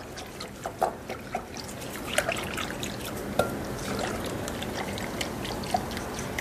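Thin egg-and-milk batter being stirred by hand in a glass bowl: wet swishing with irregular light clicks of the utensil against the glass, getting steadier and a little louder about two seconds in.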